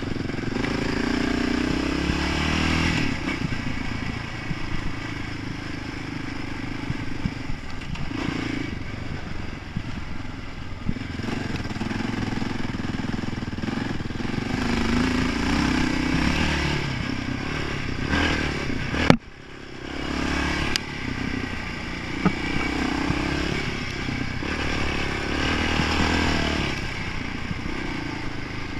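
Honda sport quad's engine revving up and down as it is ridden over a dirt track, with the machine rattling over the bumps. A sharp click about two-thirds of the way through, followed by a brief dip in the sound.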